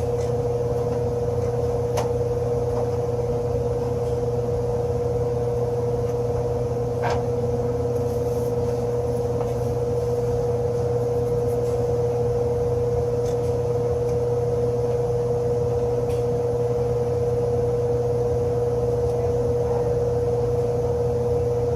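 Steady machine hum from running HVAC equipment, holding one constant tone, with a couple of light clicks about two and seven seconds in.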